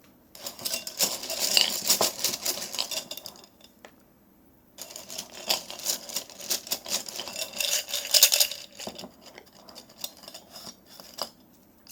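Small hard metal pieces rattling and clinking in two bouts of about three seconds each, with a few single clicks near the end.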